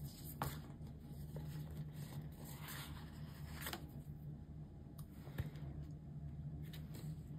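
Dot stickers being peeled from a sticker sheet and pressed onto a planner page: faint paper rustling with a few light ticks and taps, over a steady low hum.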